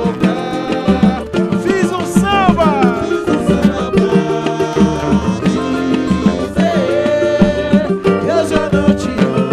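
Pagode band playing live: a samba rhythm on percussion under melodic instruments, with little or no singing.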